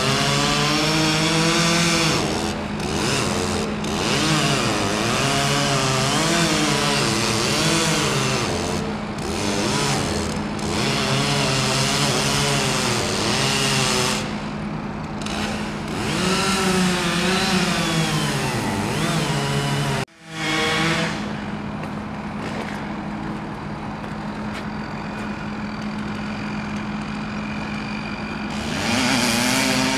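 Chainsaw revving up and down as it cuts into a tree trunk, over the steady hum of an idling excavator engine. About two-thirds of the way through the sound drops out abruptly, then the engine hum carries on more quietly. The revving chainsaw returns near the end.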